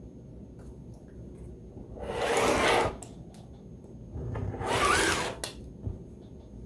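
Rotary cutter blade rolling through quilt block fabric along an acrylic ruler on a cutting mat: two cutting strokes, one about two seconds in and one about four and a half seconds in, each lasting about a second, trimming two sides of the block.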